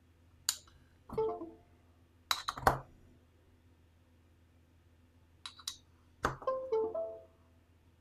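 USB plugs being pulled out of and pushed into a USB hub's ports: a few sharp plastic-and-metal clicks. Twice, about a second in and again about six seconds in, a short multi-note Windows device connect/disconnect chime plays from the tablet.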